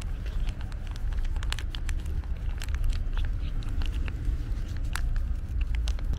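Calico cat eating wet food from a pouch and bowl: irregular short wet clicks and smacks of chewing and licking. A steady low rumble runs underneath and is louder than the clicks.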